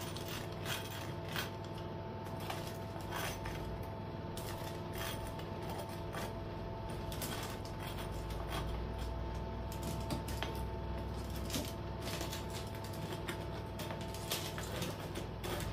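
Metal spoon scraping and tapping on toasted bread while spreading cream over the slices: a scatter of irregular small clicks and scrapes.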